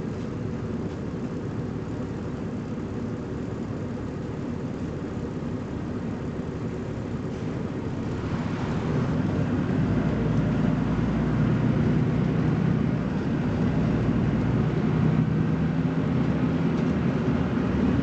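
BMC Belde 220-SLF city bus engine running, growing louder and deeper about halfway through as the bus accelerates harder.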